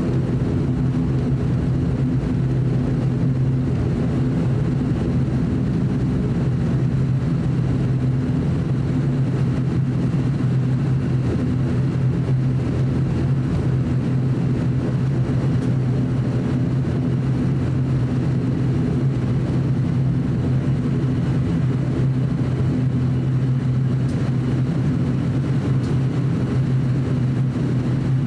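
Steady drone of an ATR 42-600's Pratt & Whitney PW127-series turboprop engine and propeller at taxi power, heard inside the cabin: a constant low hum with a few steady overtones above it.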